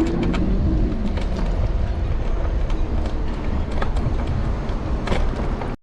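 Steady low rumble and road noise from riding an electric scooter along a city street, with scattered clicks and rattles.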